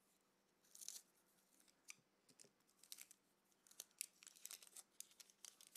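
Faint scissors snip through a foil trading-card booster pack a little under a second in, followed by a run of small crinkles and crackles as the foil wrapper is handled and pried open.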